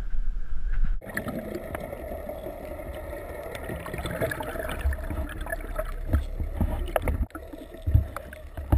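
Wind and a low boat rumble for about a second, then the sound switches to underwater audio: a muffled rush of water with gurgling and scattered clicks, and a few heavier knocks near the end.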